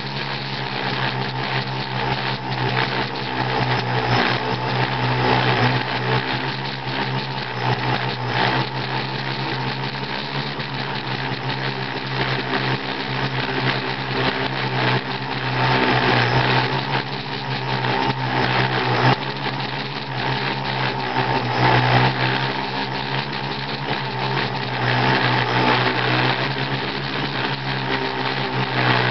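Electric motors and propellers of a small self-flying aircraft, heard close from on board: a steady hum with a whine over it that swells and eases a little every few seconds.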